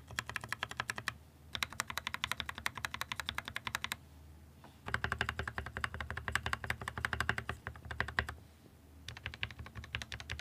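Stabilized keys on an Akko 3068B mechanical keyboard being pressed rapidly in a stabilizer test. The keyboard has lubed switches, Band-Aid-modded stabilizers and a tape mod. The keystrokes come in four fast runs of clacks with short pauses between them.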